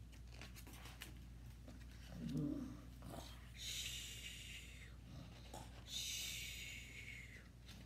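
A woman imitating snoring: a short snort-like voiced sound, then two long breathy hissing 'zzz' exhales.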